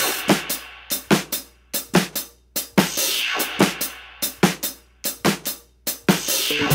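Background music at a drum break: a drum kit playing alone, with bass drum and snare hits and a cymbal crash about every three seconds.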